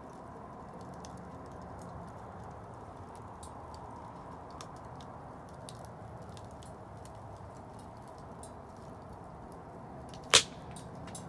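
Wood bonfire burning with a steady low rush and scattered small crackles, and one loud sharp pop about ten seconds in.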